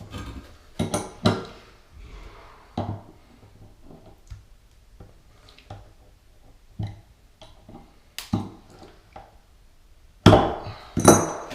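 Scattered knocks and clicks of hard drain parts and a tool being handled, set down and picked up, with a louder cluster of clatter near the end.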